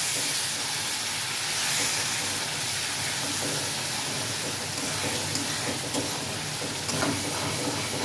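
Onion-tomato masala sizzling and hissing in a hot metal kadhai, with water just added, while a steel spatula stirs it. A few light clicks of the spatula against the pan come near the end.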